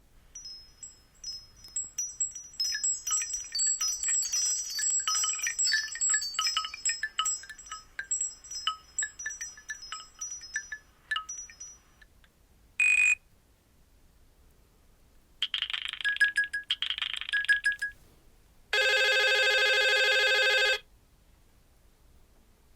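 Nokia C2-01 ringtones and alert tones played one after another through the phone's loudspeaker. First a tinkling, chime-like melody for about twelve seconds, then a short beep, then two short bursts of quick repeated notes, and near the end a steady buzzy tone lasting about two seconds.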